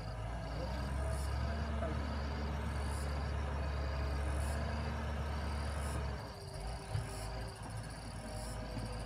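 Wheeled excavator's diesel engine running as the bucket digs, the engine note heavier from about a second in until about six seconds, when it eases off. Insects chirp in a steady high rhythm about twice a second over it.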